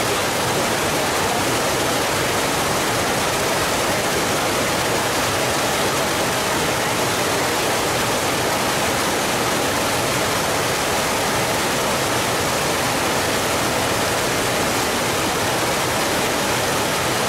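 A steady, even rushing noise that does not change in level, like falling water or static.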